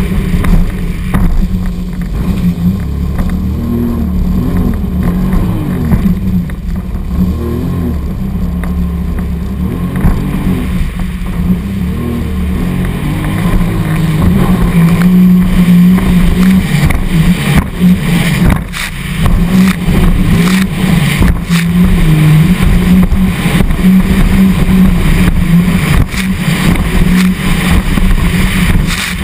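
Sea-Doo 255 personal watercraft running at speed over choppy water, its supercharged Rotax three-cylinder engine rising and falling in pitch with the throttle. The hull slaps through the waves and wind buffets the microphone.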